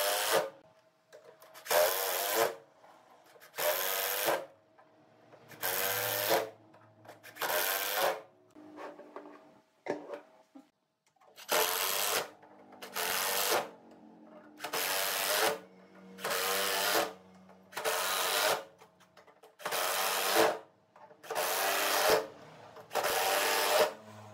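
Makita cordless impact driver driving screws into wood in a dozen short bursts, one about every two seconds, each a loud rattling hammer as the screw seats.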